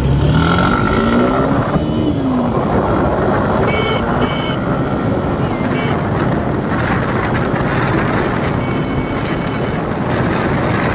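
Motorcycle engine rising in pitch as it accelerates for about two seconds, then the steady rush of riding with wind on the microphone. Two short high beeps sound about four seconds in.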